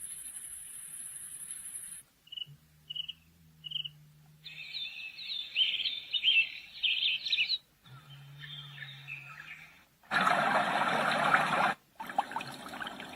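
Sunrise alarm clock's built-in sleep sounds played through its small speaker, switched from one to the next every couple of seconds: a high steady trill, three short chirps, birdsong, then a loud hiss of noise about ten seconds in.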